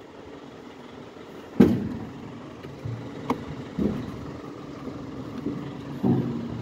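Tools and parts knocking and clanking in a car's engine bay as a mechanic works on the coolant hose, with one sharp clank about a second and a half in and a few softer knocks later. A steady engine hum runs underneath.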